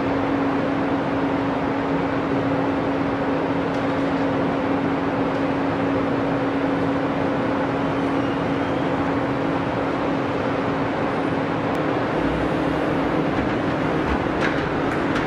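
Steady car assembly plant floor noise: a continuous rushing din with a constant low hum underneath, unchanging throughout.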